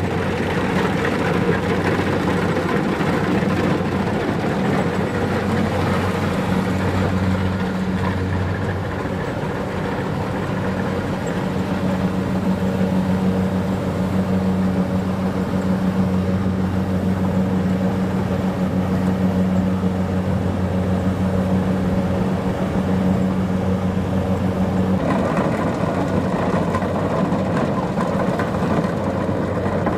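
Kubota DC-70 Plus rice combine harvester's diesel engine running steadily under harvesting load, a constant hum. Near the end the sound changes and turns brighter and harsher.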